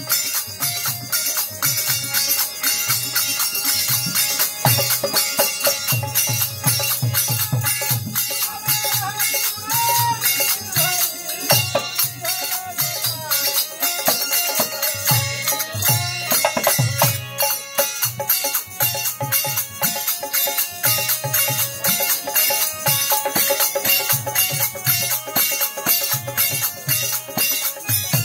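Bhajan music played live: a dholak drum beating a steady rhythm under continual bright metallic jingling percussion, with a melody line above.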